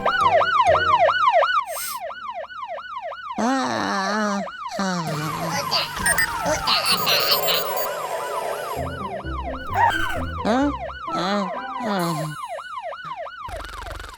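Cartoon fire engine's siren in a fast yelp, its pitch sweeping up and down about three or four times a second. It breaks off about two seconds in, mixes with other cartoon sound effects and music in the middle, then yelps again near the end.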